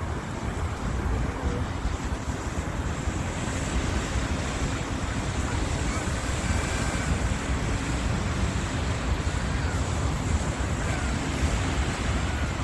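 Wind buffeting the microphone as a steady low rumble, over an even wash of water from waves nearby.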